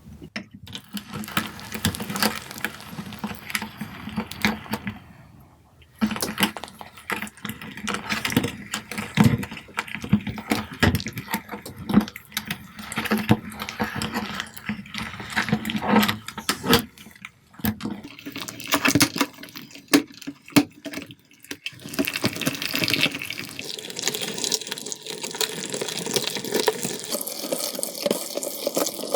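Wet slime being squished and worked, a dense run of sticky crackles, pops and squelches, with a brief pause about five seconds in and a smoother, hissing stretch in the last several seconds.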